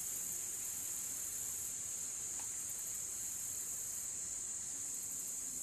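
Steady high-pitched insect chorus of crickets, droning without pause.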